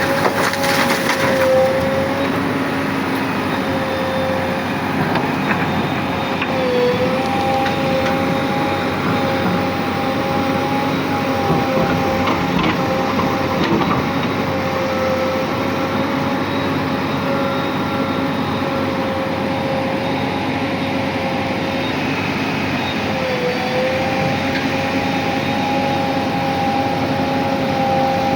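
JCB 3DX backhoe loader's diesel engine running steadily with a high whine, which twice dips briefly in pitch.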